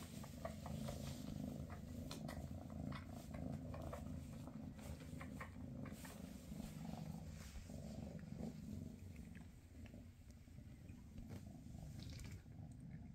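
Maine Coon cat purring steadily, a low pulsing rumble, with scattered small clicks over it.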